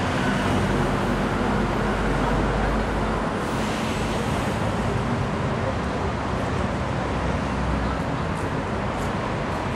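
City street traffic: a steady din of passing vehicles, with a low engine rumble for the first three seconds and a brief hiss about three and a half seconds in.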